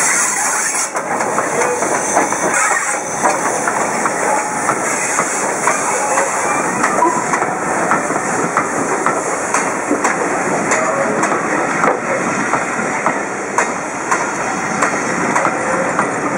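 Steam train passing close by, tender-first: a hiss of steam as the locomotive goes past in the first second, then the coaches rolling by with steady wheel-on-rail noise and repeated clicks over the rail joints.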